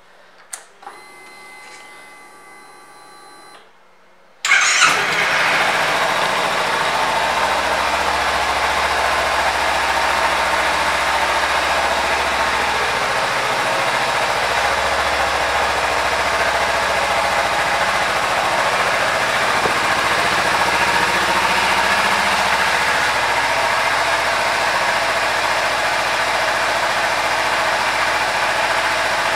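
A 2015 Kawasaki Ninja 300 SE's parallel-twin engine is started a little over four seconds in, after a faint steady whine, and then idles evenly.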